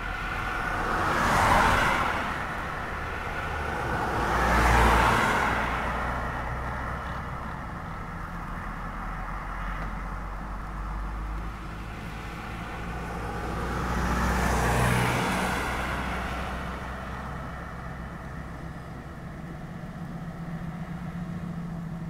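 Road traffic on the adjacent road: three cars pass one after another, each a rush of sound that swells and fades, over a steady low traffic rumble.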